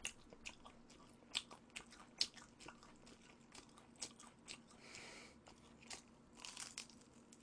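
Faint, close-up chewing and biting of sauced, spicy boneless fried chicken: scattered soft crunches and wet mouth clicks, with a brief breathy hiss about five seconds in and again near the end.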